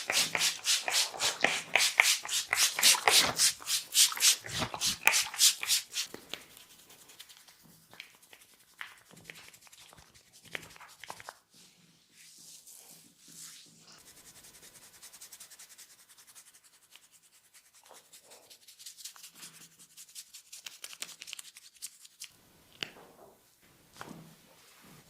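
Hands rubbing over skin in a massage: loud, fast strokes in an even rhythm for about the first six seconds, then quieter, irregular rubbing with occasional soft taps.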